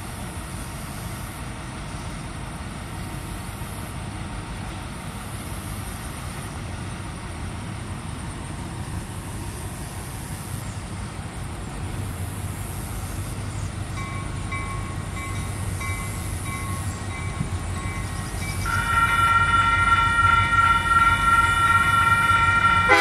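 EMD F-unit diesel locomotives approaching, their low engine rumble growing steadily louder. About three-quarters through, the locomotive's multi-tone air horn sounds loudly and holds, blowing for the grade crossing.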